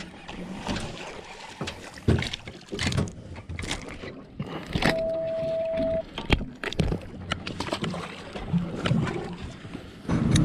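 Scattered knocks and clatter on a small fishing boat, with one steady beep lasting about a second about five seconds in. A louder steady hum comes in just before the end.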